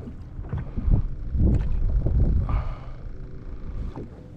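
Wind buffeting the microphone as a low rumble that swells through the middle, with a few light clicks and knocks over it.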